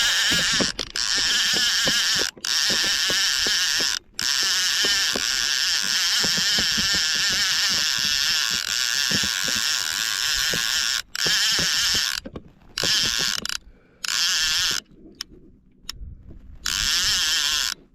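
Fishing reel ratcheting rapidly with a fish on the line: a loud whirring clicking with brief breaks, coming in shorter bursts with gaps over the last few seconds.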